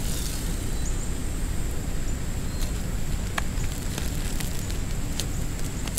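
Campfire burning under a frying pan of breaded green tomatoes cooking in butter: a steady low rush with a few sharp pops.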